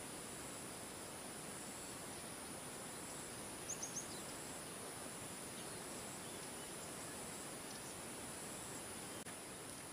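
Outdoor ambience: a steady, high-pitched drone of insects over a soft hiss. About four seconds in, a bird gives three quick, high chirps.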